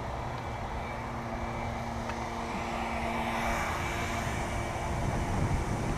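Wind and rolling road noise on a bicycle-mounted camera while riding, rising slowly, with a steady low engine-like hum underneath that fades out about five seconds in.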